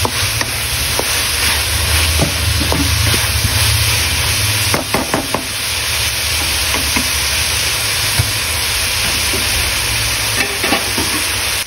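Chopped vegetables and scrambled egg sizzling in a hot pan, with a metal spatula scraping and knocking against the pan now and then as they are stirred. A low steady hum runs underneath.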